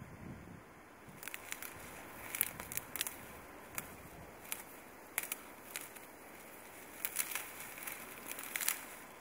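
Dry grass and weed stems crackling and rustling as they are parted and bent by hand. The crackles come in sharp, irregular snaps from about a second in.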